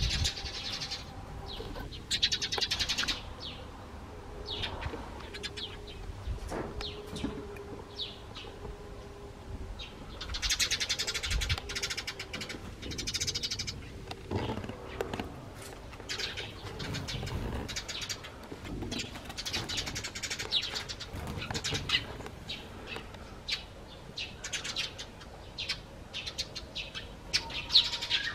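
Eurasian tree sparrows chirping repeatedly in short high calls, breaking into denser runs of chatter now and then.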